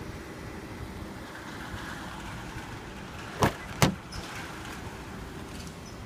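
Front passenger door of a Nissan Murano being opened: two sharp clicks close together from the door handle and latch releasing, over a steady low rumble.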